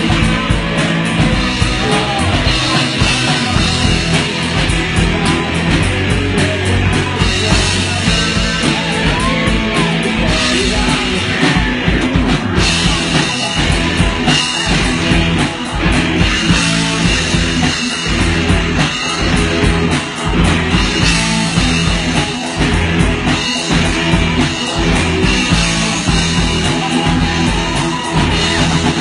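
Loud rock music with drum kit and electric guitar, and faint singing.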